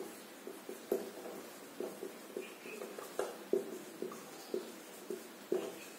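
Whiteboard marker writing on a whiteboard: a run of short, irregular strokes and small taps as letters are written.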